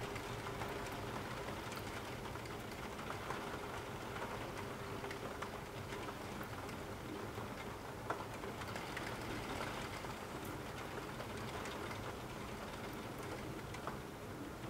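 Steady rain falling, with many individual drops tapping close by and one sharper drop about eight seconds in.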